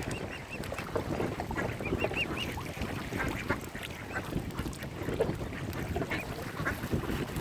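Mallard ducks quacking repeatedly, with runs of short high-pitched calls from other birds near the start and about two seconds in.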